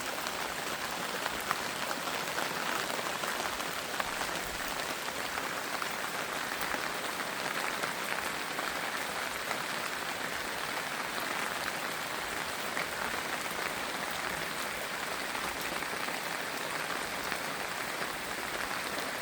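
Steady rain falling on leaves, a dense patter of small drops.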